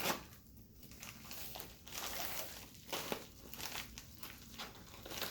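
A shipping bag crinkling and rustling in irregular strokes as a pocket knife is worked at it to cut it open.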